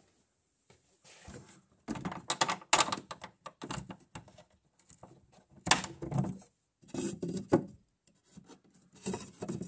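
Wooden bookshelf door being handled and moved by hand: several short bursts of knocking, clattering wood.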